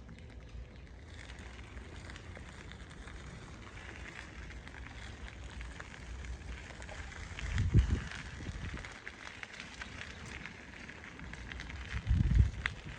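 Bicycle tyres rolling along a rail-trail surface: a steady crackling crunch of many small ticks, with two louder low rumbles, one near the middle and one near the end.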